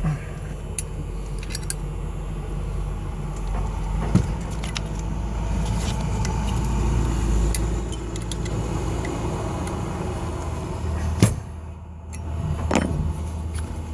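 Screws being tightened on a deadbolt lock to draw its mounting wings down against the door: scattered sharp metal clicks and handling noise over a steady low rumble.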